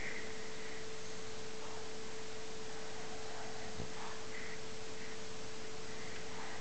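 French bulldog snoring: faint, irregular rasping breaths under a steady hum and hiss.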